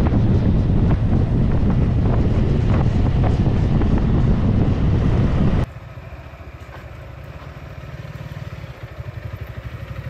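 Motorcycle riding at road speed: steady wind rush over the microphone with the engine underneath, cut off suddenly about five and a half seconds in. Then a dirt bike's engine at low revs pulls up close, its exhaust pulsing evenly and getting louder near the end.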